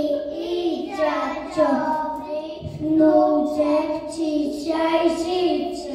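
A young child singing a song, in sung phrases of about a second each with held notes.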